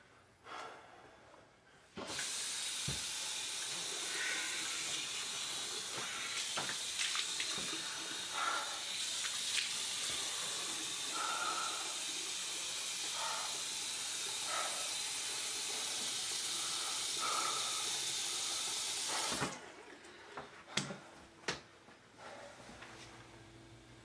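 Bathroom sink tap running into the basin while a man splashes water onto his face. The water comes on suddenly about two seconds in and cuts off sharply a few seconds before the end, followed by a few light clicks.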